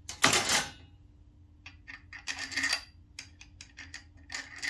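Thin 16-gauge sheet metal being handled and set down on a bench. There is a loud metallic rattle about a quarter-second in, then a cluster of light clinks and taps around the middle and again near the end.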